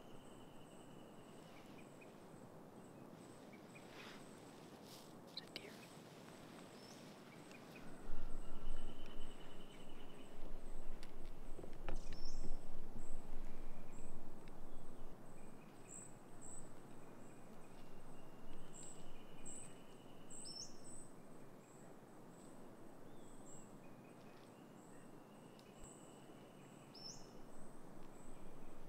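Quiet woodland ambience: birds give short rising chirps and a few longer held notes, over a faint steady high-pitched insect-like tone. From about eight seconds in, a louder rushing noise with a low rumble swells and fades for several seconds.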